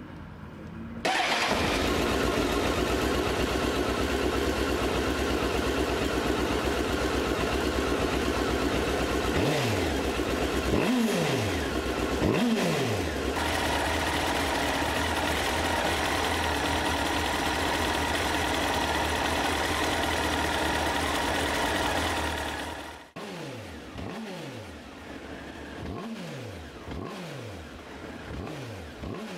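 Honda CBR954's inline-four engine running, with short throttle blips: three revs about ten seconds in, then, more quietly after an abrupt change, a string of quick revs near the end.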